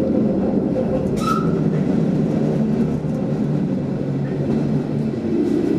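Matterhorn Gotthard Bahn train running, heard from inside the driver's cab: a steady rumble of motors and wheels on the rails, with one brief high squeal about a second in.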